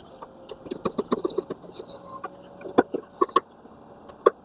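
Irregular small clicks and taps of hands working on an old ceiling lampholder, handling its housing, screws and wiring, with a faint steady hum underneath.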